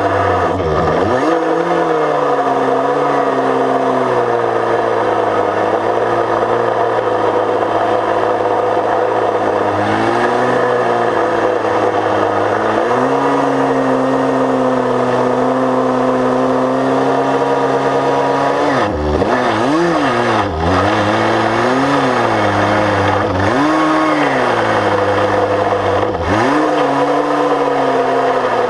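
Chainsaw engine running at high speed, its pitch dipping and recovering as it loads up in the cut, then swinging down and up several times in quick succession near the end.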